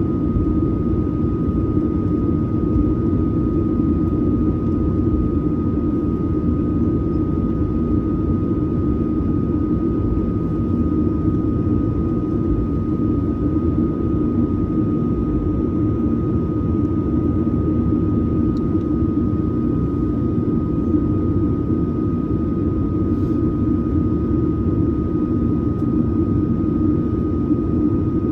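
Boeing 737-900ER's CFM56-7B turbofan engines running steadily, heard from inside the passenger cabin as a constant deep drone with a thin, steady high tone above it.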